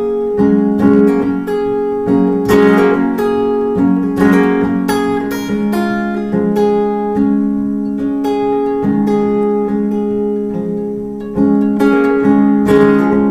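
Solo acoustic guitar playing an instrumental outro, strummed and picked chords ringing one into the next, growing louder again near the end.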